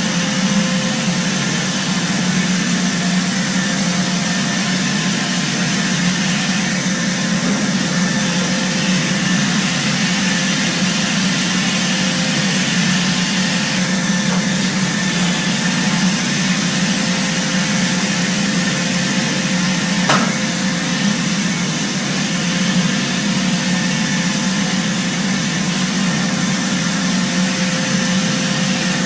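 Robot vacuum cleaner running steadily, a whirring motor hum over a broad hiss, with one sharp click about twenty seconds in.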